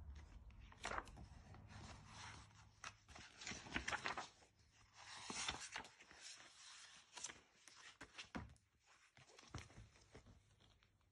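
Pages of a picture book being turned and handled: a string of quiet paper rustles and soft flaps, thinning out near the end.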